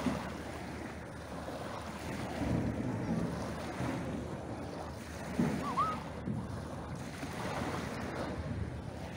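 Small waves breaking and washing over a pebble beach, swelling louder a few seconds in and again a little past halfway, with wind on the microphone. A brief high chirp sounds about six seconds in.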